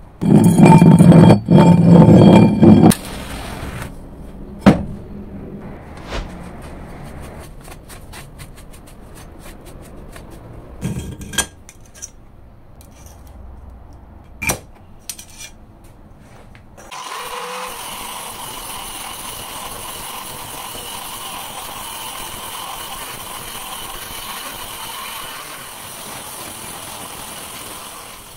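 Loud clanking of scrap metal pieces being shifted in a pile for about three seconds, then a few scattered knocks. About 17 seconds in, an angle grinder with a cut-off disc starts and runs steadily with a high whine, cutting a thick rusty steel block clamped in a vise.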